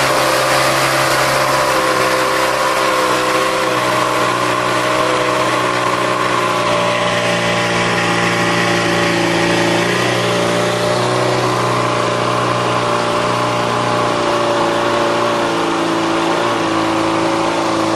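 Small boat's outboard motor running steadily at speed, with water rushing along the hull.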